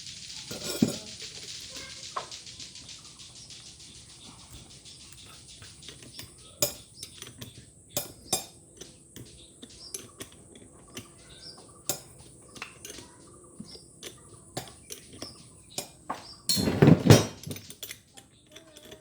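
Metal tools and small turbocharger parts clinking and tapping against each other during hand assembly: scattered irregular clicks, a louder knock about a second in and a louder clatter near the end.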